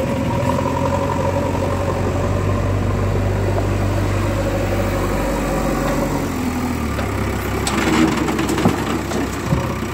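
A JCB backhoe loader's diesel engine running steadily while its front bucket lifts a load of earth. Near the end come scattered knocks and clatter as the soil and stones are tipped into the steel body of a tipper truck.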